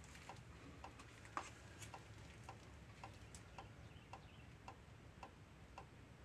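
Faint, steady ticking about twice a second over near-silent room tone, with one slightly louder click about a second and a half in.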